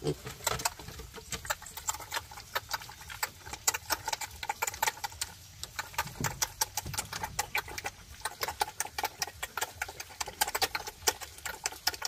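Pigs eating: fast, irregular smacking and chomping.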